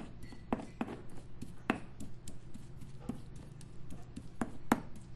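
Pestle tapping and grinding in a stone molcajete, mashing onions and cilantro: irregular taps with a few sharper knocks.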